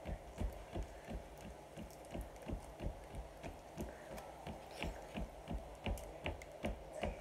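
Plastic candy wrapper crinkling and crackling as it is picked open by hand, with an even run of soft low thumps about three a second underneath.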